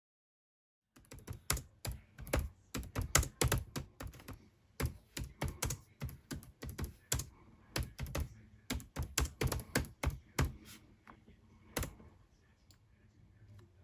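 A rapid, irregular run of sharp clicks and taps, starting about a second in, dense for most of the stretch, then thinning out to a few last clicks near the end.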